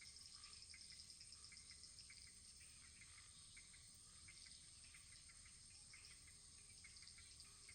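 Faint crackling of a wood fire: irregular small pops over a steady high hiss.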